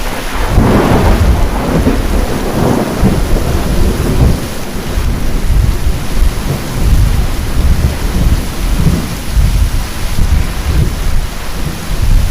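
Heavy rain falling steadily, with a peal of thunder rolling through the first few seconds and low rumbling continuing under the rain afterwards.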